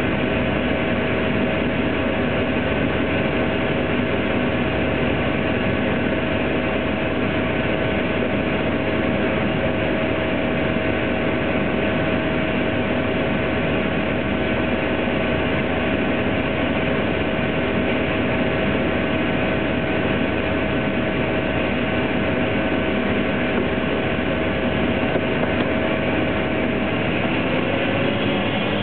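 Single-engine floatplane's piston engine and propeller running steadily at low power, heard from inside the cabin as a loud, even drone with a fixed hum. Near the end the pitch starts to rise as power comes up for the takeoff run.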